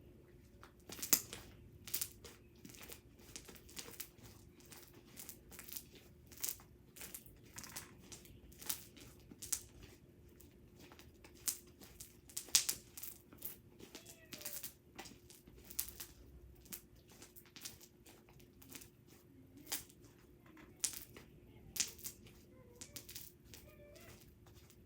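Homemade glue slime being squeezed and kneaded by hand, giving off irregular sharp clicks and pops, a few a second.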